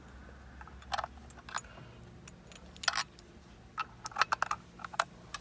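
Irregular light plastic clicks and rattles of a cable and its connector being handled and fed behind a car's dashboard, over a faint low hum.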